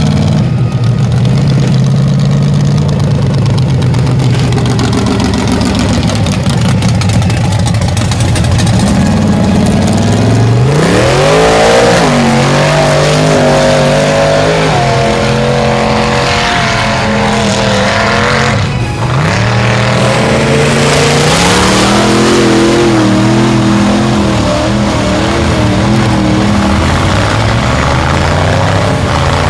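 Mud-bog trucks' engines revving hard under load as they plough through a mud pit. The engine pitch climbs sharply about a third of the way in and again about two-thirds through, and holds high and steady in between.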